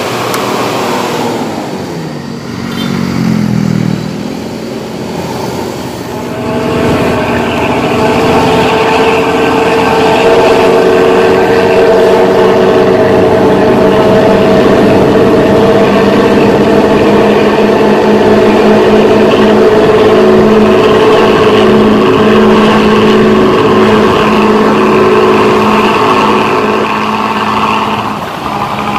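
Motorcycle engine running through a Luragung aftermarket 'ngorok' (snoring) exhaust. It revs up and down over the first few seconds, then holds a loud, steady high rev from about seven seconds in, easing off briefly near the end.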